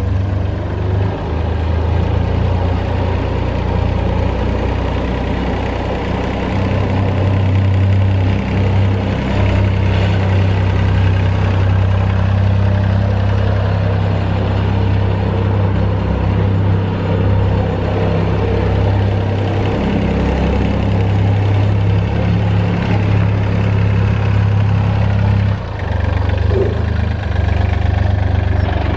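Goldoni Transcar 33RS utility tractor's Lombardini LDW 1503 three-cylinder diesel engine running at a steady low note while the tractor is driven, with a brief dip near the end.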